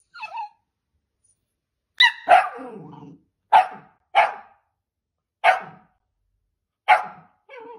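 A dachshund gives a short falling whine, then barks sharply about six times at short intervals from about two seconds in. The second bark trails off into a brief low growl.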